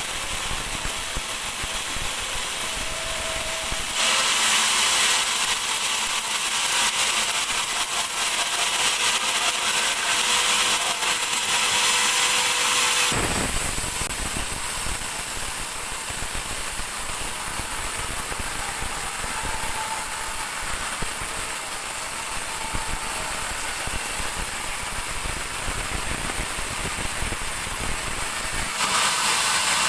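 Large band sawmill running and sawing dry teak, a steady mechanical noise with a harsher, louder stretch from about 4 to 13 seconds in, after which the sound changes.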